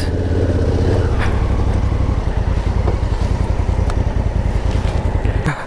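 Adventure motorcycle engine running at low, steady revs while the bike rolls over rough ground. Its low throb drops away about five and a half seconds in.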